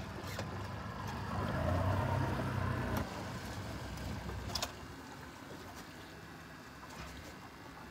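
Low steady rumble of a boat on open water, louder in the first three seconds and quieter after about five seconds, with a couple of sharp clicks.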